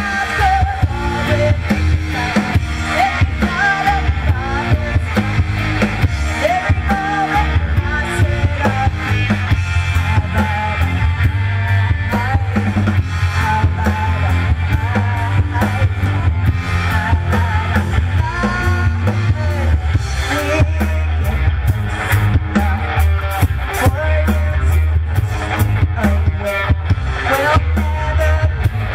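Live rock band playing loud with a drum kit, electric guitar and trombone, and a woman singing.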